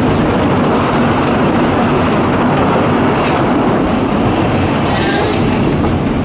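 Narrow-gauge passenger carriage running along the track, heard from the carriage window: a steady rumble of wheels on rail with clatter over the rail joints.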